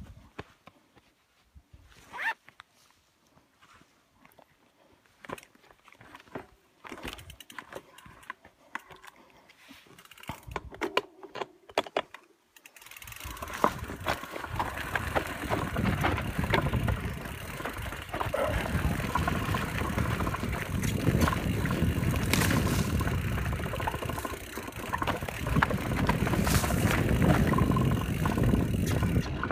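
Scattered faint clicks and knocks for about the first twelve seconds. Then a Canyon Spectral enduro mountain bike suddenly sets off downhill on a rocky trail: loud, continuous tyre and riding noise with the bike rattling and knocking over rocks, picked up by a phone taped to the rider's chest.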